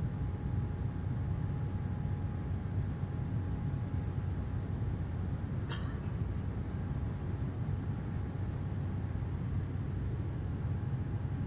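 Steady low rumble of a jet airliner's engines and airflow, heard inside the passenger cabin during the climb, with a faint steady whine above it. A brief crackle a little past halfway.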